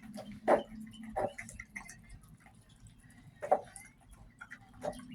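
Scattered sharp clicks and knocks, four louder ones spread irregularly, over a steady low hum.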